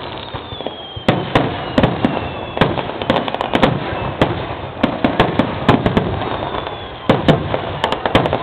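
Fireworks display: aerial shells bursting in an irregular string of sharp bangs, several a second at times, with faint falling whistles now and then.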